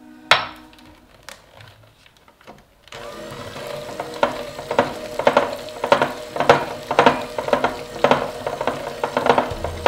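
Electric hand mixer creaming vegan butter, coconut sugar, maple syrup and vanilla into a thick mixture in a ceramic bowl. After a quiet start with a single click, the mixer starts up about three seconds in: a steady motor hum with rasping strokes about twice a second as the beaters churn and scrape through the mixture.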